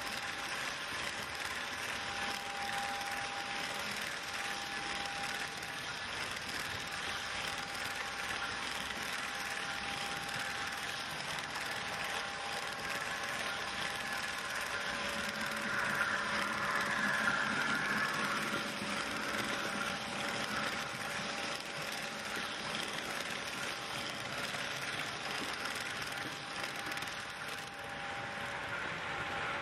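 Fleischmann HO-scale model freight train of low-loader wagons running past on the track: a steady clatter and rattle of the wheels on the rails with a faint thin whine, swelling a little about halfway through.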